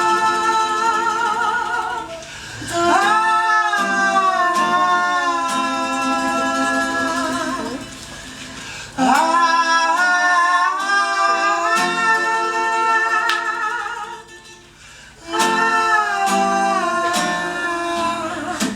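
Live singing in long held notes with vibrato, without recognisable words, over acoustic guitar. It comes in phrases of several seconds with short breaks between them, and each new phrase slides up into its first note.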